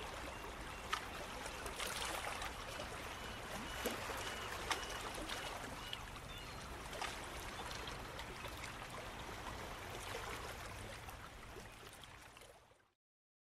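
Faint, steady running water, like a trickling stream, with a few small splashes and clicks; it fades out near the end.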